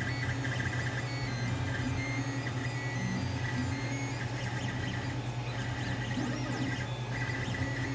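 FDM 3D printer running a print: a steady low hum from the stepper motors, with short whining tones that keep stepping to new pitches as the print head moves.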